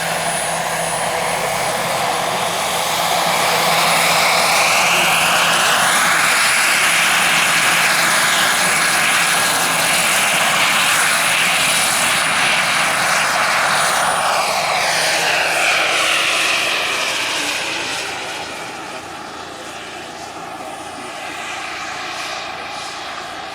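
Quarter-scale AS350 B3 Ecureuil model helicopter with a Jakadofsky 5000 Pro turbine flying past: a steady high turbine whine over rotor noise. It grows louder as the helicopter comes in, the pitch sweeps down as it passes, and it is quieter over the last few seconds as it moves away.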